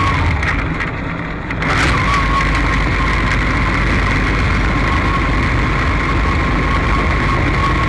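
Race car engine running steadily, with a thin, steady high whine joining it about two seconds in after a brief dip in level. This is the 'wheezing' the owner hears from this car when it is hot and hard to start, while it is hitting a little intermittently.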